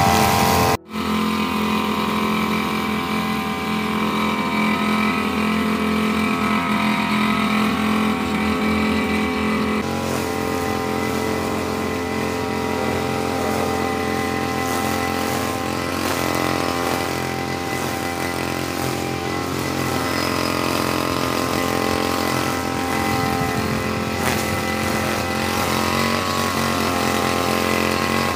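Backpack brush cutter's small petrol engine running steadily while trimming grass, briefly cut off about a second in.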